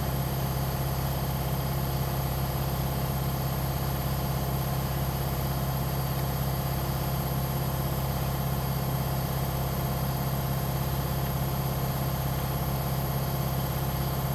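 Steady mechanical hum of a motor running at a constant speed, unchanging throughout.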